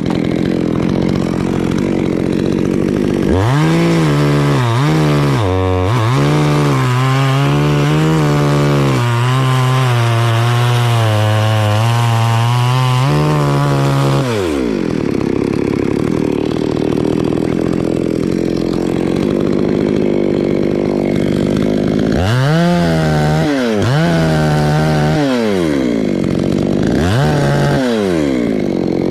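Two-stroke chainsaw running hard and cutting through a coconut palm trunk. Its engine pitch sags and wavers under load through two long stretches of cutting, one starting about three seconds in and one near the end.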